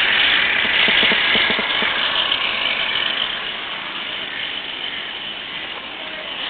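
Steady noise of construction machinery running, with a few faint knocks about a second in, easing off toward the end.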